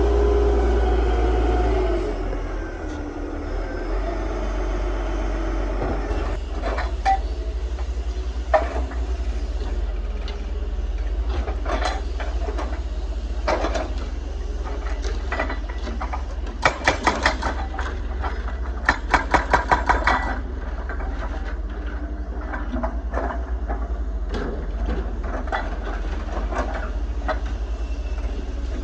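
Excavator's diesel engine running steadily, louder for the first two seconds, with scattered clanks and knocks of the machine working the asphalt. Near the middle come two short rapid rattles of knocks, about five or six a second.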